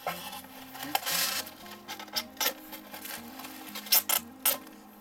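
Quiet background music with held notes, over a series of sharp close clicks and rustles, loudest around four seconds in.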